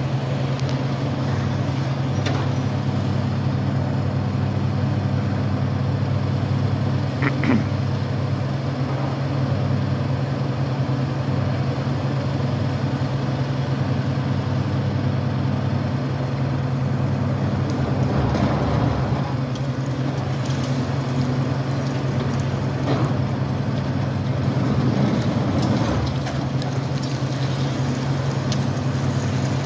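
Diesel engine of a Caterpillar-based ultra-high-reach demolition excavator (DEM 50) running steadily while its jaw works the top of a concrete tower block. A few sharp knocks come through, and about eighteen seconds in there are a couple of seconds of crunching and falling rubble.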